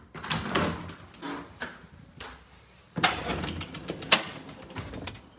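A door being opened, with scraping and rattling in the first second. Then a porch screen door slides along its frame, ending in a sharp click a little after four seconds in.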